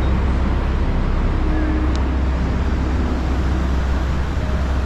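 Steady wind rumbling on the microphone over the even wash of ocean surf.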